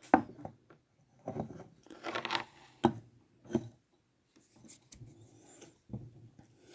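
Small metal clicks and short scrapes from handling a freshly soldered alligator clip and copper wire, a few sharp ticks among brief rubbing sounds with quiet gaps between.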